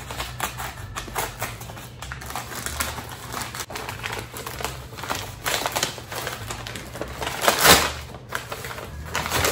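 Brown paper and plastic packaging rustling and crinkling as it is handled and pulled open, a run of small crackles and clicks with one louder crinkle near the end.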